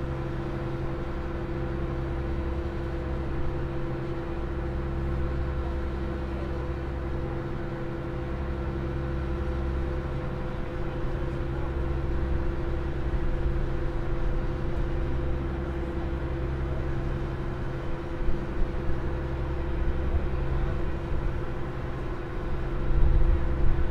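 Open car ferry's engines running with a steady drone and constant hum tones. The low rumble swells and eases every few seconds, and irregular low thumps come near the end.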